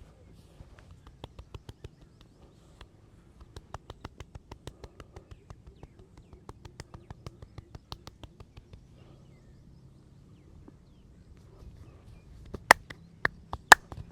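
Masseur's hands slapping and tapping a client's head in a quick light patter, about five strokes a second. Near the end come a handful of sharp, loud hand claps.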